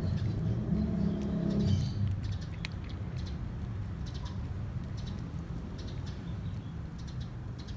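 A cat chewing dry kibble: short, crisp crunches at an irregular pace. Under them runs a low rumble, loudest in the first two seconds.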